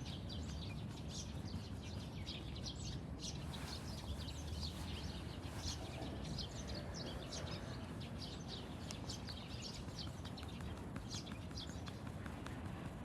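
Small birds chirping in quick, short calls over a steady low outdoor rumble.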